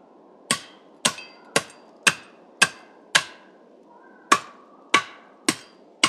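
Blade edge of a Tac9er tactical multitool shovel, swung like an axe, chopping at white pine branches: nine sharp blows, six at about two a second, then a short pause and three more. Each blow rings briefly.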